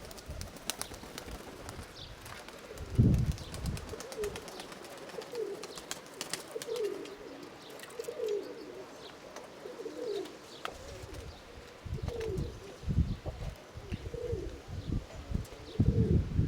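Nikolaev pigeons cooing, a string of repeated rising-and-falling coos, with gusts of wind rumbling on the microphone about three seconds in and again near the end.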